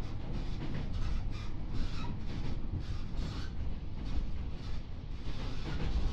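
Cabin running noise of a JR 415 series electric multiple unit under way: a steady low rumble from the wheels and running gear, with a stream of short rattles and clicks several times a second.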